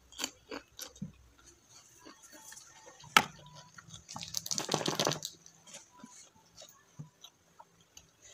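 Close-miked eating sounds: crisp bites and wet chewing of a raw cucumber slice. A sharp crunch comes about three seconds in, and a louder stretch of rapid chewing follows about a second later.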